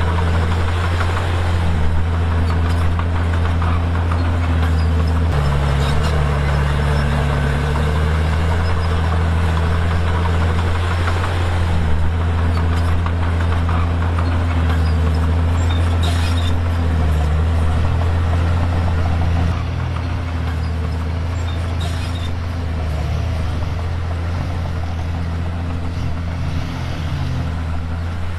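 Komatsu D51PX bulldozer's diesel engine running under load while pushing and spreading stone, its engine speed rising and falling again and again. A couple of sharp metallic clanks sound in the middle, and the engine drops somewhat in loudness about two-thirds of the way through.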